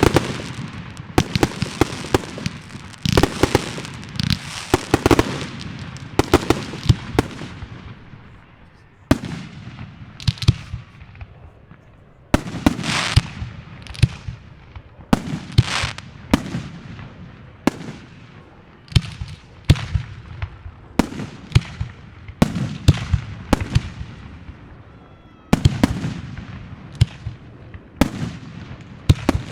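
Aerial fireworks shells bursting in a steady barrage of sharp bangs, several in quick succession at times, each trailing off in an echo.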